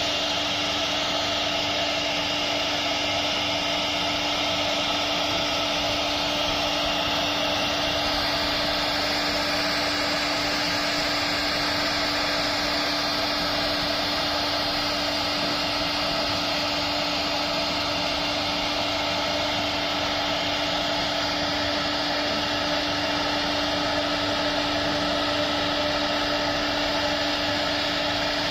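CNC router spindle running steadily, its fine engraving bit carving relief into a wooden panel: a steady whine over the hiss of cutting wood.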